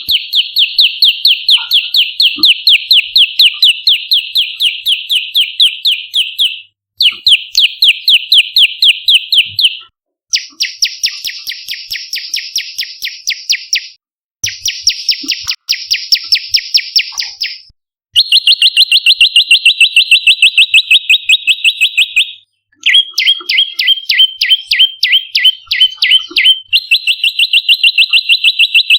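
Prenjak lumut songbird calling in fast runs of sharp, evenly repeated chirps, several a second, in bouts of a few seconds with brief pauses between them. Some bouts change to rougher, buzzier notes or to alternating high and low notes.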